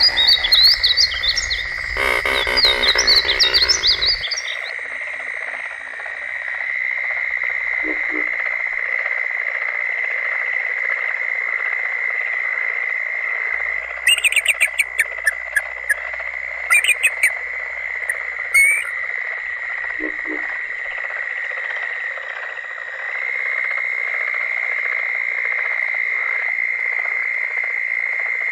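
Steady chorus of calling frogs holding one high pitch. A painted bunting's quick warbling song rides over it for the first few seconds. About halfway through come several short runs of a bald eagle's high, chattering calls.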